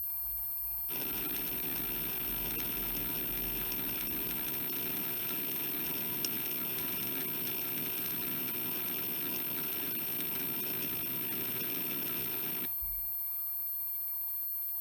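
Hitachi Deskstar 7K80 80 GB IDE hard drive's heads seeking continuously during an HD Tune benchmark: a dense, even seek noise that starts about a second in and stops abruptly near the end, over a steady high whine.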